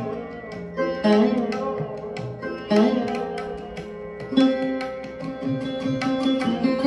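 Instrumental background music: plucked string notes over hand-drum strokes, in an Indian classical style.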